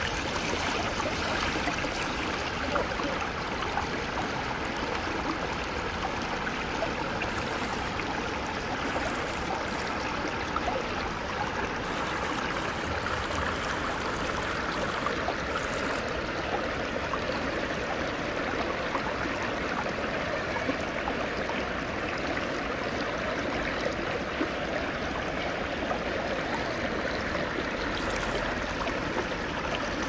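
Shallow mountain stream running over smooth rock slabs and spilling through a small chute: a steady, even rush of flowing water.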